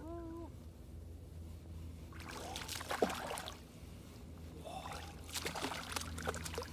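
A hooked fish splashing and thrashing at the water's surface beside a boat as it is reeled in. The splashing comes twice, about two seconds in and again near the end, with a sharp slap about three seconds in.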